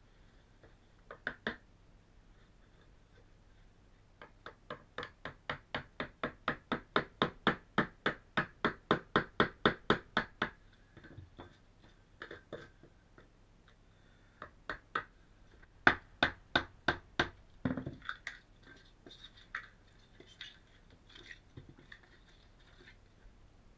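Claw hammer tapping a scraper in a quick, even series of sharp knocks, about four a second for several seconds, working it along the stripped floor edge. A few more scattered groups of hammer taps follow later.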